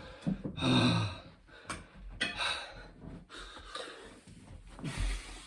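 A man breathing hard and heavily mid-burpee, with a short voiced grunt of effort about a second in and a few dull thumps, the clearest near the end.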